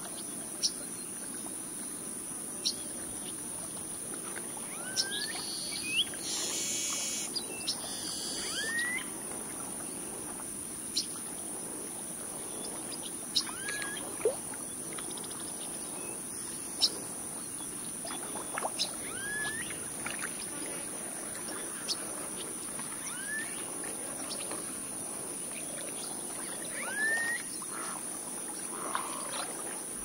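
Outdoor nature ambience: short bird chirps and whistles every few seconds over a steady high-pitched insect drone. There is a denser cluster of calls a few seconds in.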